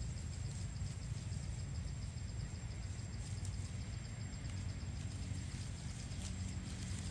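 Outdoor ambience: a steady low rumble with a faint insect chirping in a rapid, even rhythm high above it.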